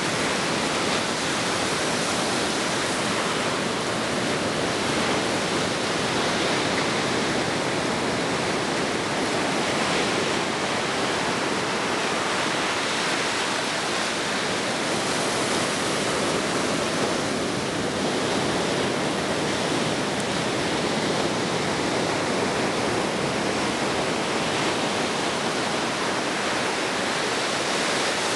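Ocean surf washing on a beach, heard as a continuous, even rushing noise with almost no swell or break in loudness.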